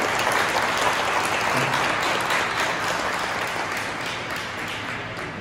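Audience applauding, a dense patter of many hands clapping that thins out and fades near the end.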